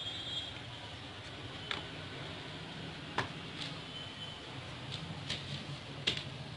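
A plastic laser toner cartridge being handled: about half a dozen light, irregular clicks and taps of its casing over steady background noise.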